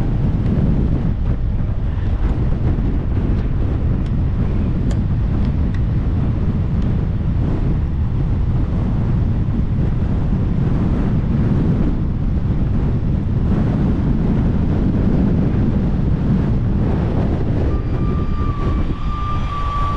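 Strong gale-force wind buffeting the camera microphone, a loud, steady rumble. A steady high tone comes in near the end.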